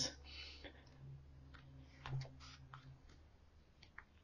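Faint clicks and soft paper rustles of book pages being handled and turned by hand.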